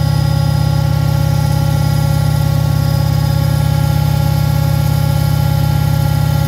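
Beko washing machine running steadily at speed: a loud low hum with a fast, even throb, with the motor's steady whine above it, typical of the drum spinning.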